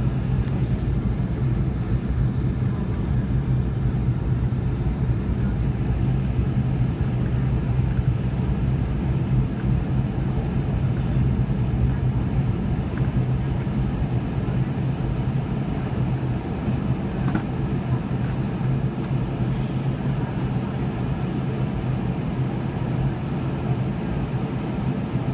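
Steady cabin noise inside a Boeing 717 airliner in its climb: a constant rush of airflow and drone from its rear-mounted Rolls-Royce BR715 turbofans, with a steady low hum. A single faint click comes about two-thirds of the way through.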